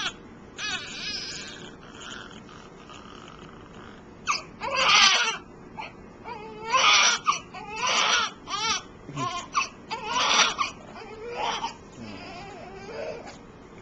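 Newborn baby crying: a few softer cries at first, then from about four seconds in a run of loud wails, each under a second long, with short breaths between.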